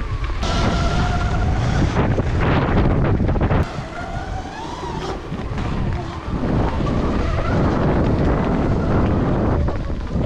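Heavy wind buffeting the microphone while riding a Sur-Ron electric dirt bike, with the electric motor's faint whine rising and falling in pitch as the speed changes.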